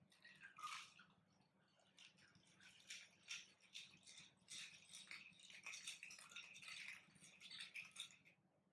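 Freshly shaken cocktail poured from a metal cobbler shaker through its built-in strainer into a glass: faint clinks and rattles of ice shifting inside the shaker over the trickle of liquid, after a metallic clink near the start.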